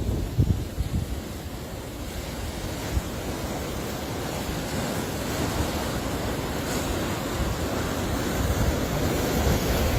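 Sea waves washing in, the surf building gradually in loudness through the middle, with wind buffeting the microphone in gusts at the start and near the end.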